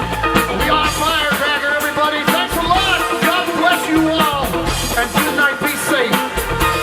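Live rock band playing with a drum kit, a lead line bending and wavering in pitch over the beat.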